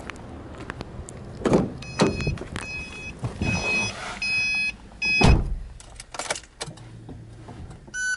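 Getting into a Subaru Forester: knocks and rustling as the driver's door is opened and someone climbs in, while the car's reminder chime beeps repeatedly. The door shuts with a heavy thump about five seconds in, and near the end another chime sounds as the ignition is switched on.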